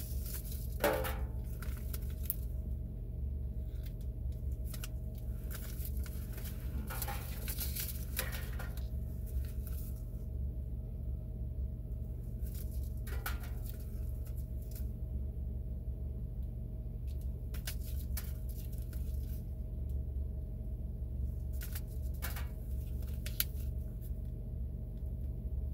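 Paper seed packets rustling and clicking now and then as they are handled and held up, over a steady low hum in a car's cabin.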